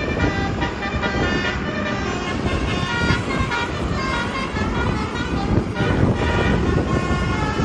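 Telolet horn, a multi-trumpet musical air horn on a vehicle, playing a quick run of high, shifting notes over a steady low rumble of engine and traffic.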